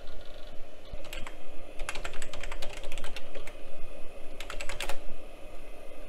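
Typing on a Gateway AnyKey keyboard: short bursts of keystrokes with pauses between them, over a steady low hum.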